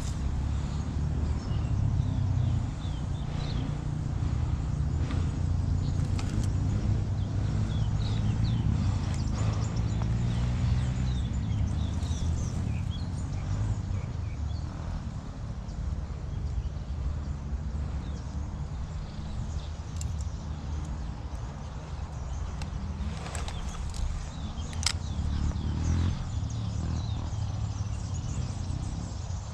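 Small birds chirping over a steady low rumble, with a few sharp clicks, one standing out near the end.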